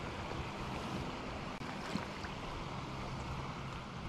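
A small trout stream running steadily, with a low rumble of wind on the microphone.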